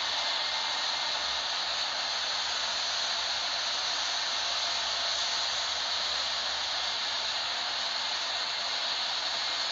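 Steady, even rushing noise of a Boeing 777 airliner in flight: airflow and jet engines, with no change in level or pitch.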